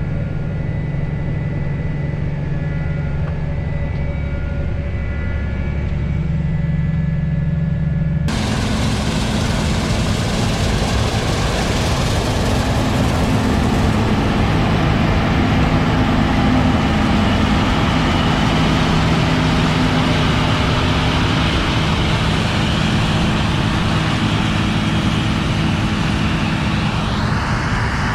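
Combine harvester running steadily while harvesting, a low engine hum. About eight seconds in, the sound changes abruptly to a much louder, hissing machine noise with the engine hum still underneath. Near the end a whine rises in pitch.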